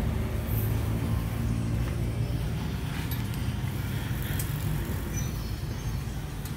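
A motor vehicle's engine idling steadily, a low, even hum.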